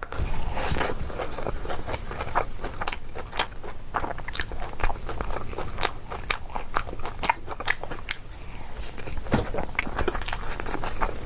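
Pomfret fish and rice being chewed, with many crisp crunches in quick succession.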